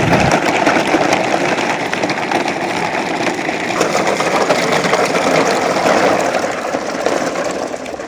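Plastic toy dump trucks' wheels rolling over muddy, stony ground: a steady gritty crackling and rattling.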